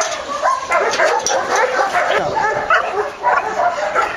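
German Shepherd dog giving rapid, high-pitched yelps and whining barks, several a second and without pause: an excited dog.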